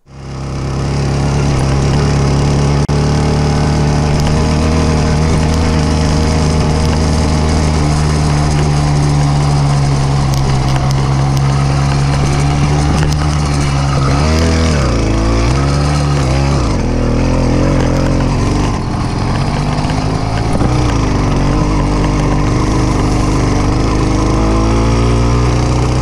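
Motorized bicycle's small kit engine running steadily. Its pitch dips and swings for a few seconds in the middle as the throttle changes, and briefly again a little later, then it settles back to a steady note.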